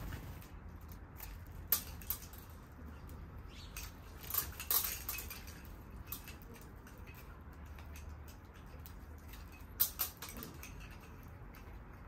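Sparrows pecking seed in a wooden bird feeder: a few sharp taps and clicks, two close together about two seconds in, two more around four to five seconds, and one near ten seconds, over a steady low city hum.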